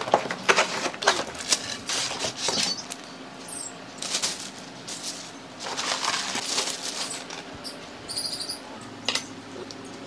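Unboxing noises from a cordless stick vacuum's packaging: a cardboard box being opened and the vacuum lifted out of polystyrene foam inserts and a plastic bag, with a run of short scrapes, taps and rustles.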